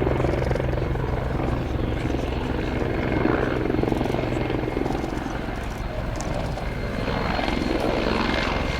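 Mil Mi-24V Hind attack helicopter flying, its main rotor beating in a steady low pulse over the high whine of its twin turboshaft engines.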